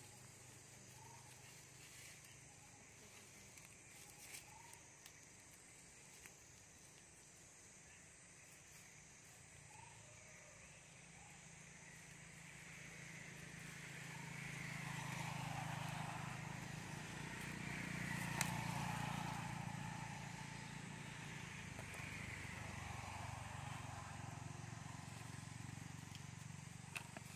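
A motor vehicle, likely a motorbike or car, passing by out of sight. Its engine noise swells for several seconds, is loudest near the middle, then fades, over a faint steady background of insects.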